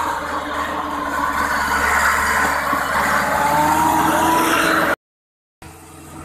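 Belarus tractor's diesel engine working hard under load, its pitch slowly rising as it revs, while the rear wheels slip on a soft dirt track pulling a loaded trailer. The sound cuts off abruptly about five seconds in and comes back much quieter.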